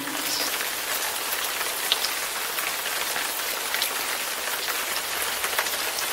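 A steady, even hiss like rain falling on a surface, with faint scattered ticks through it.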